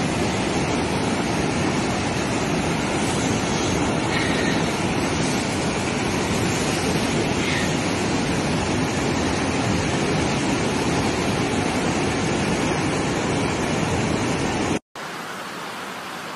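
Floodwater rushing in a loud, steady wash, then a sudden cut near the end to a quieter, steady hiss of water.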